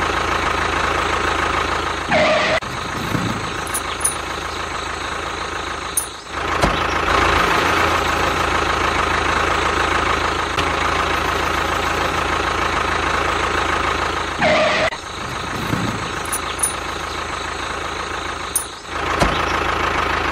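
Tractor engine running steadily at idle, with a brief higher-pitched sliding sound about two seconds in and again about fifteen seconds in. The whole pattern repeats roughly every twelve and a half seconds.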